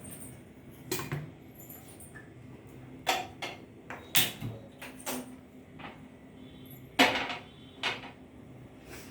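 Kitchen utensils and cookware being handled: a handful of sharp knocks and clatters, the loudest about seven seconds in.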